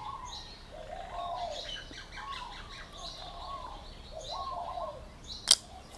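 Birds calling: a run of short, dove-like calls repeating every half second to a second, with fainter, higher chirps among them. A single sharp click sounds near the end.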